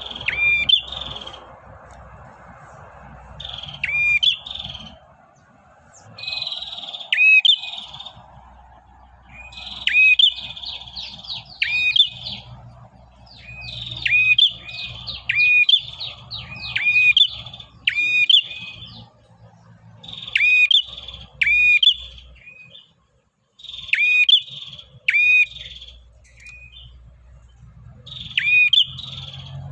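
Male prenjak singing non-stop, sharp chirping notes mixed with a buzzy trill, in short loud phrases repeated every second or two.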